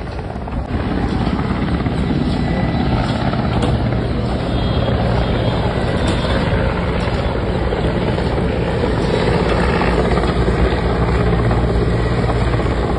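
Helicopter flying overhead: a steady rotor and engine noise.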